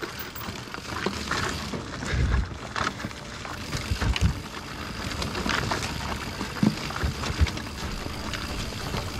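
Mountain bike riding downhill on a dirt forest trail: tyres rolling over soil and leaves with a steady low rumble, and frequent knocks and rattles from the bike over bumps.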